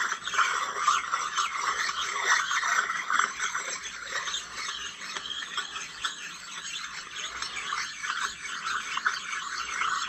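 Coarse side of a precision-ground flat stone rubbed back and forth over a cast-iron milling machine table, making a continuous scratchy scrape that swells and fades with each stroke. The stone is knocking down burrs and high spots on the table surface rather than removing material.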